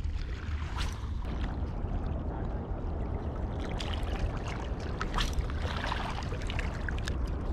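Small waves lapping and trickling among shoreline rocks, over a low steady rumble of wind on the microphone, with scattered small clicks.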